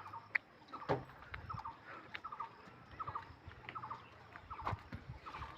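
Birds calling: short, rapid chattering calls repeating about twice a second, with scattered sharp clicks among them.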